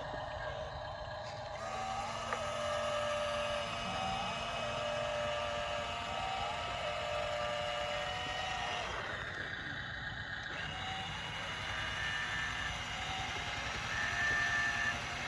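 Small electric motors and gearboxes of radio-controlled construction models whining. Several tones step and glide up and down in pitch as the motors are driven.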